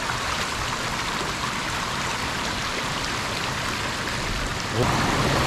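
Mountain stream rushing steadily over rock slabs. A little before the end the sound grows louder and deeper.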